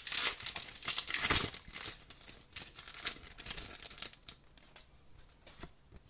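Foil wrapper of a hockey card pack crinkling and tearing as it is opened, loudest in the first second and a half. Then quieter rustling and light clicks of the cards being slid out and handled.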